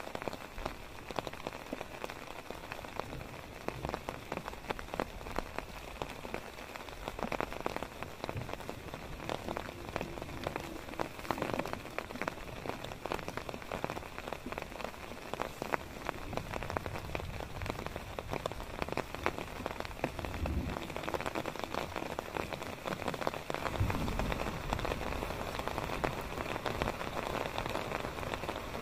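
Heavy rain falling on a tarp shelter and tent: a steady, dense patter of drops, with a brief low rumble twice in the second half.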